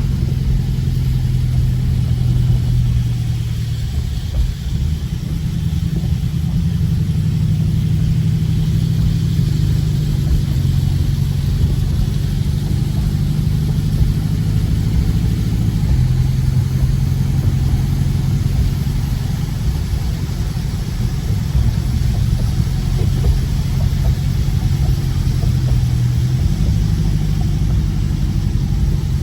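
Dodge Scat Pack's V8 engine running at low, fairly steady revs while the car is driven, with steady tyre noise from the wet road. The engine note shifts slightly a few times.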